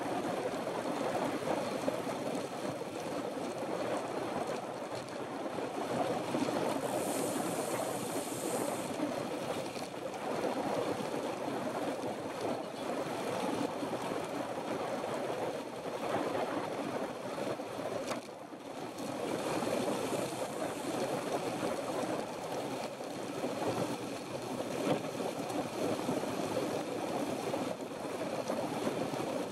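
Steady rush of wind over the microphone and tyre noise from a road bike riding at speed.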